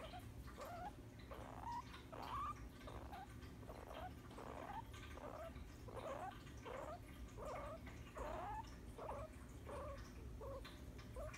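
Guinea pig giving a string of soft, short squeaks that rise in pitch, about one and a half a second, over a faint low hum.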